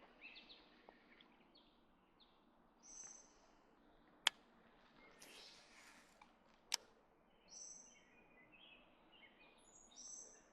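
Quiet riverside ambience with a faint steady hiss and scattered high birds' chirps, several short phrases. Two sharp clicks, about two and a half seconds apart in the middle, stand out as the loudest sounds.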